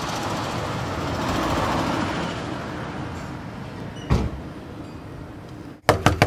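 A car passes on the street, its noise swelling over the first two seconds and fading away. A single thump comes about four seconds in, and near the end a quick series of knocks on a wooden front door.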